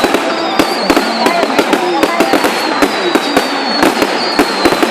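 Fireworks exploding in rapid, irregular succession, several bangs a second, over the voices of people talking.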